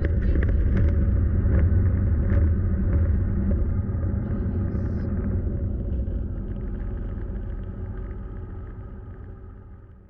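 Car cabin noise while driving: a steady low engine and road rumble that fades out gradually toward the end.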